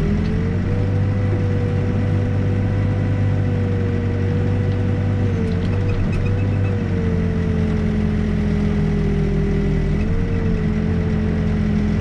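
Backhoe working a shallow footing trench: its diesel engine runs steadily with a higher whine above it that dips slightly a couple of times, and a few faint clicks about halfway through.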